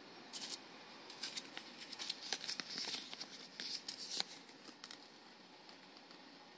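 Crisp rustling and light clicks of a paper leaflet being unfolded and handled, busiest for about four seconds and then tapering to a few faint ticks.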